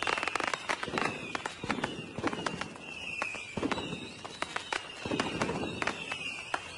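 Fireworks display: rockets whistling as they go up, then bursting with deep bangs and a dense crackle of sharp pops.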